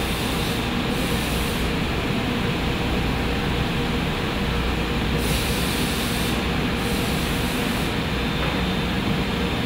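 Propane-powered forklift engine running steadily, with a faint steady whine over the engine noise.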